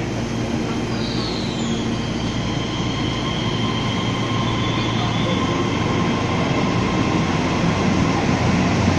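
Taiwan Railways EMU3000 electric multiple unit pulling out of the platform: a steady rumble and rush with a high electric whine that slides down in pitch about a second in and then holds, the whole sound slowly growing louder as the train gathers speed.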